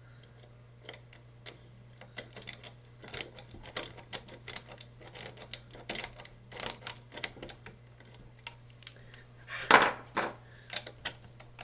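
Irregular metallic clicks and clinks of a small socket and hand tools working the screws of a Delco alternator's case, with a louder, longer clatter near the end.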